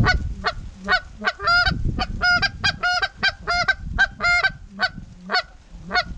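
Goose honking: a rapid series of about eighteen short, loud honks, roughly three a second, over a low rumble of wind.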